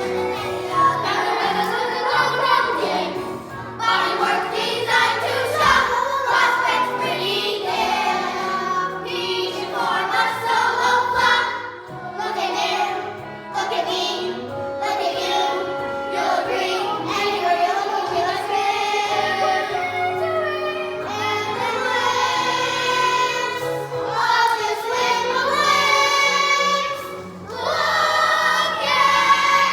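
A school musical's cast singing a song number together, young voices in chorus with musical accompaniment.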